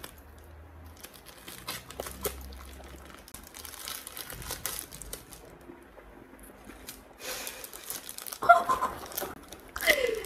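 Plastic parcel packaging crinkling and rustling as it is handled and cut open with scissors, with scattered small clicks and snips. A brief vocal sound, like a short laugh, comes near the end.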